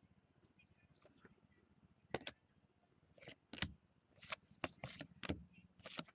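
Trading cards and their packs being handled: quiet for about two seconds, then a string of short rustles and crinkles.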